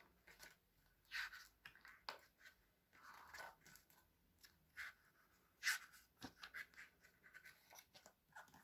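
Faint paper rustling and soft handling clicks as photobook pages are turned, with a few louder page sounds about one, three and six seconds in.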